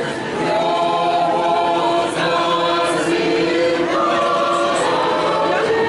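A choir singing, several voices holding long, sustained notes together.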